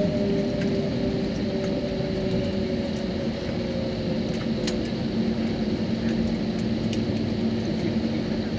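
Airliner's jet engines running at taxi power, heard from inside the passenger cabin: a steady rumble and rush with a few low hums, one drifting slightly lower in pitch and a lower one growing stronger partway through.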